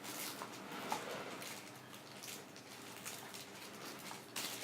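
Rustling and light handling noises, a run of short scrapes and crinkles as objects are picked up and moved, with one brief squeak about a second in.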